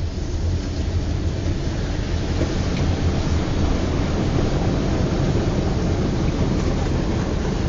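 A car driving through floodwater, heard from inside the cabin: a steady low drone from the engine and road, with a rushing wash of water noise that builds over the first couple of seconds.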